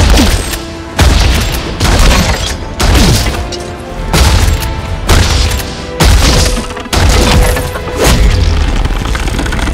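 Heavy fight impacts, punches and body slams with deep booms, about one a second, some with falling whooshes between them, over dramatic film-score music.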